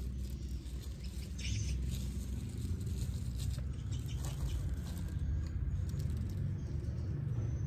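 Yellow plastic bag crinkling and rustling in short irregular crackles as a hand reaches into it, over a steady low rumble.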